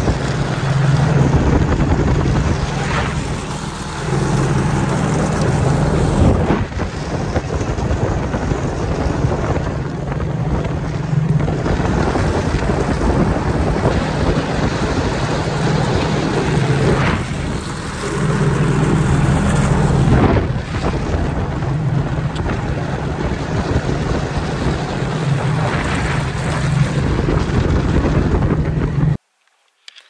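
Snowmobile engine running at speed, a low drone that swells and eases, under heavy wind buffeting the microphone. It cuts off suddenly near the end.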